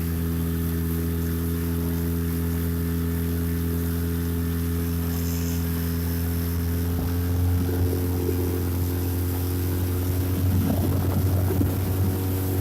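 Boat motor running steadily with a low, even drone. From about seven seconds in, a rougher noise joins it and the sound grows a little louder.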